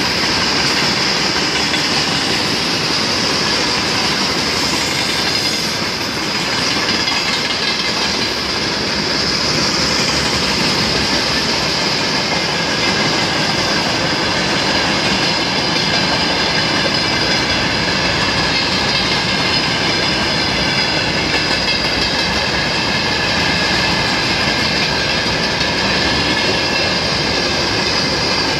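Freight train wagons rolling past: steady rumble and clatter of steel wheels over the rails, with a steady high-pitched squeal from the wheels running over it.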